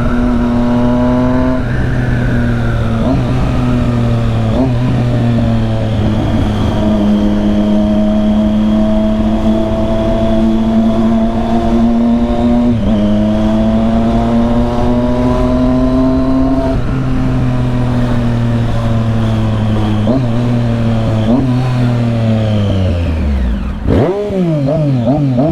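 Triumph Street Triple 675's three-cylinder engine through an aftermarket full exhaust, riding and pulling up through the gears. The engine note climbs gradually and drops sharply at each upshift, four times. Near the end the note falls away as the bike slows.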